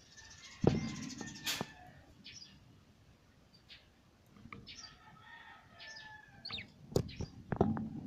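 Budgerigars chirping and warbling in short, scattered calls, with a few sharp knocks.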